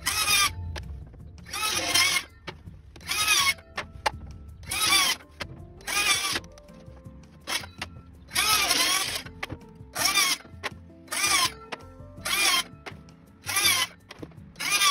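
Cordless circular saw cutting thin sanded panel board into squares, run in about a dozen short bursts under a second each, the motor's pitch sliding as it spins up and winds down.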